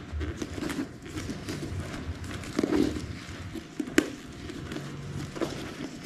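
Handling noise of a leather bag strap being fastened by hand: small clicks and rustles from its metal clasp fitting, with one sharp click about four seconds in.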